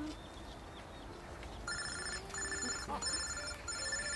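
Mobile phone ringing: an electronic ringtone of short beeps repeating about one and a half times a second, starting about a second and a half in.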